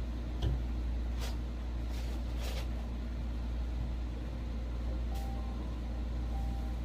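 Steady low background hum with a few light clicks and rustles scattered through it.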